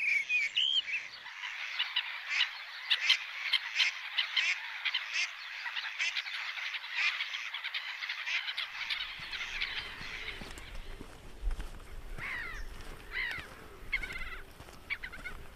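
Mistle thrush calling and singing: a dense run of rapid, chattering notes for about ten seconds, then a few separate short song phrases.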